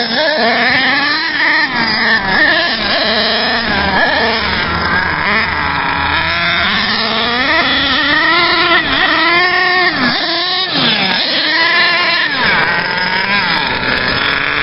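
HPI Savage nitro RC monster truck's Axial .28 two-stroke glow engine revving at high speed. Its pitch rises and falls as the throttle is worked, with several quick climbs and drops in the second half.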